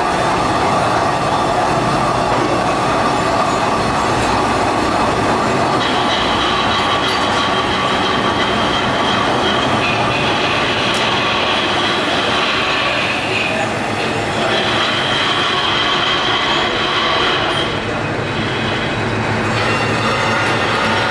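Metal lathe turning a steel crankshaft, the cutting tool running against the spinning shaft with a steady grinding noise. About six seconds in a high-pitched squeal of the tool on the steel joins it, breaking off briefly twice.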